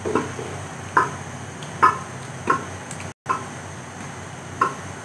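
About six short knocks of a wooden spoon against the rim of an aluminium cooking pot as shredded chicken is knocked off into thick haleem, over a steady low hum.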